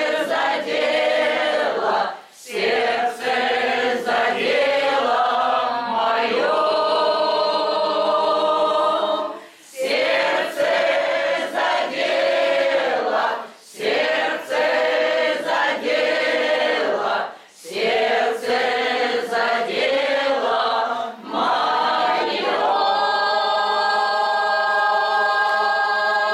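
An amateur mixed choir of older women and men sings in phrases broken by short breaths, ending on a long held chord over the last few seconds. Clapping starts right at the end.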